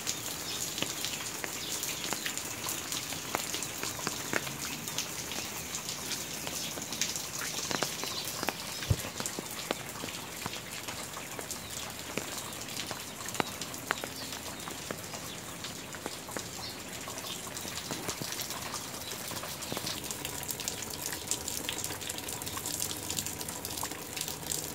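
Steady rain falling, with many separate drop ticks close by and one sharper tick about nine seconds in.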